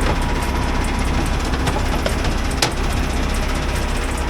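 Semi truck's diesel engine idling steadily, with a few sharp clicks over it, the loudest about two and a half seconds in.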